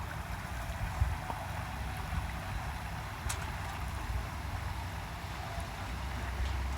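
Boat under way on open water: a steady low rumble with rushing water and wind noise, and a single sharp click about three seconds in.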